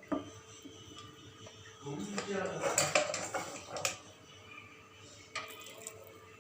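Metal spoon clinking and scraping against a cooking pot while rice is spooned in as a layer, with a burst of clinks in the middle and a few more near the end.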